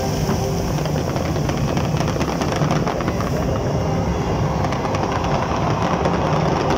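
A dense, continuous barrage of firework explosions, merging into a steady rumble with many sharp crackles through it, strongest in the first half.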